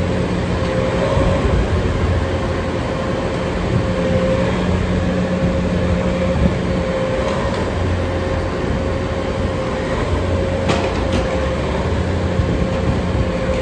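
Steady machinery noise: an engine or drive running at a constant speed, with a steady whine over a low hum.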